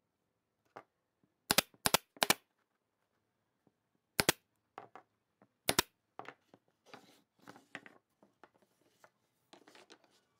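Pneumatic nail gun firing five times into wood: three quick shots about 0.4 s apart, then two more a second or more apart. Afterwards come lighter knocks and clatter of wooden pieces being handled on the bench.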